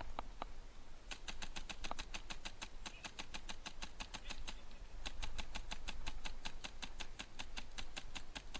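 Rapid, even clicking at about ten a second, in two long runs with a short break in the middle. This is typical of an airsoft electric gun firing on full auto.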